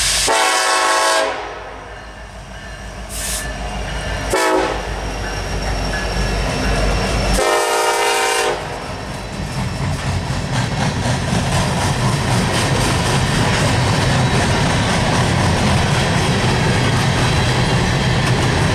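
Nathan K5LA air horn on a BNSF EMD SD70ACe diesel locomotive sounding for a level crossing: a long blast, a short one and another long one. Then the locomotives run past and a string of empty steel coal gondolas follows, rumbling and clattering on the rails.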